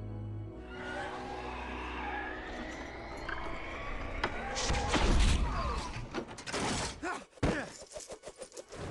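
Film sound effects: a rushing noise builds from about half a second in to a heavy thud about five seconds in, followed by a quick run of sharp knocks and clatters.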